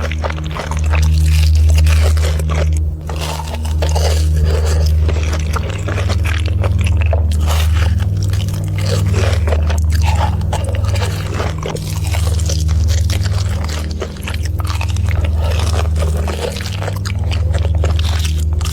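Close-up crunching and chewing of crispy fried chicken: a dense, irregular run of crisp bites and crackles. A low steady bass drones underneath.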